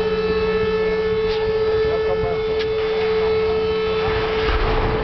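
A long horn blast holding one steady note with many overtones, sounding through a ship's side launch. Near the end a rushing, rumbling wash of water joins it as the hull drops into the river.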